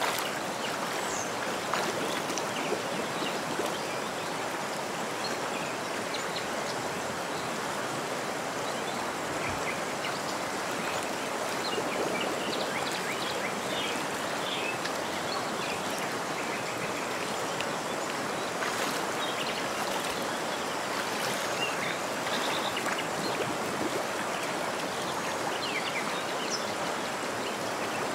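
Steady rush of a river's flowing water, with scattered faint, short, high chirps over it.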